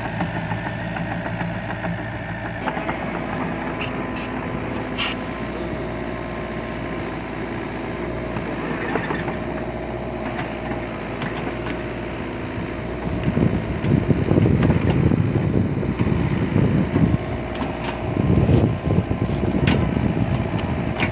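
LiuGong mini excavator's diesel engine running steadily as the machine works. Louder rough noise swells over the engine about two-thirds of the way through and again near the end.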